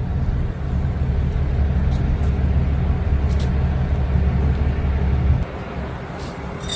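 A vehicle engine running with a low, steady rumble that cuts off suddenly about five seconds in.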